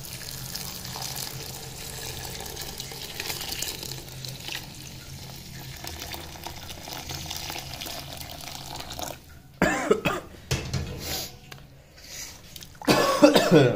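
Milk pouring in a steady stream into a metal pot of grated carrots and rice, a continuous splashing liquid sound for about nine seconds. Near the end, a person coughs loudly a couple of times.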